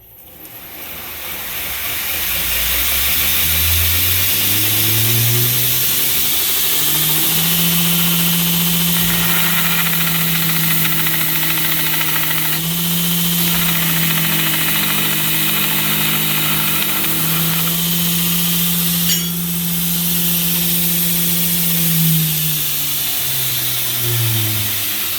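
Electric grinder motor running on 220 V mains. It spins up over several seconds to a steady hum, then winds down near the end as it is switched off.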